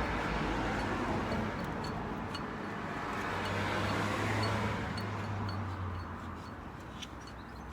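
A motor vehicle going past, its engine noise swelling and then fading, with faint regular ticking about three times a second.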